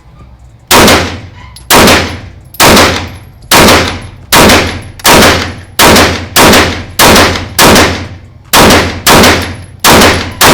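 Glock 19 Gen 5 9mm pistol fired in a steady string of about fourteen shots, roughly one a second or a little faster, each shot leaving a short echo. The magazine is an aftermarket Korean-made one being emptied without a stoppage, meant to show that such magazines work.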